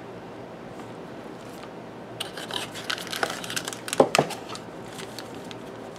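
Small plastic zip-lock bags crinkling and rustling as they are handled, a run of crackles starting about two seconds in and lasting a couple of seconds, loudest about two-thirds of the way through.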